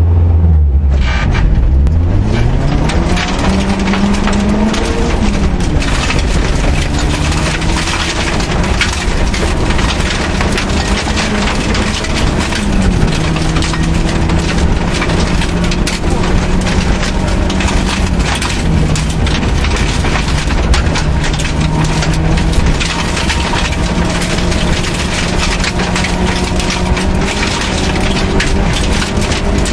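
Suzuki Swift rally car's engine heard from inside the cabin, pulling away hard about a second in and climbing in pitch through the gears, dropping back at each upshift. Loose gravel rattles and pings constantly against the car's underside.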